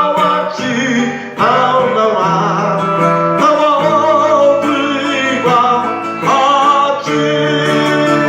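Acoustic guitar playing a slow instrumental worship melody, plucked notes held over sustained bass notes.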